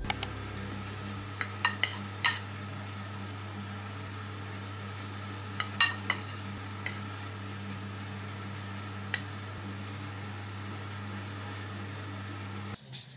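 Food being plated from a pan: a wooden spatula scraping and clinking against the pan and ceramic plates several times, over a steady low hum.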